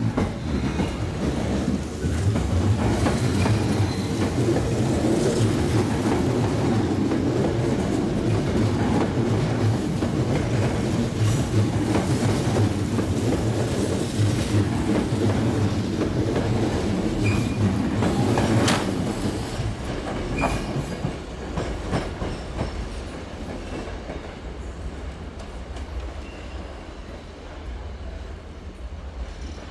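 Sanyo Electric Railway 5000 series electric train departing past the platform, a heavy rumble with its wheels clacking over rail joints and a few brief squeals. Over the last ten seconds the sound fades steadily as the train pulls away down the line.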